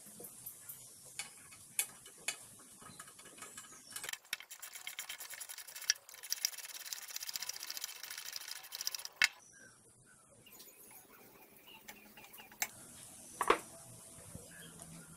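Hand socket ratchet clicking rapidly for about five seconds as a bolt on the drill press's motor bracket is tightened, with a few sharp metal clicks and knocks from parts being handled before and after.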